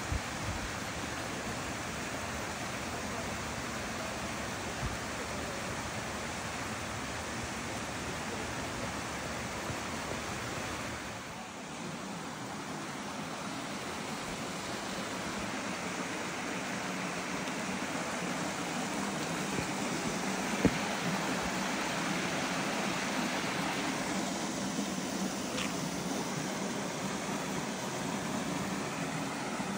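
Steady rush of a mountain stream flowing over rocks, with a single sharp knock about two-thirds of the way through.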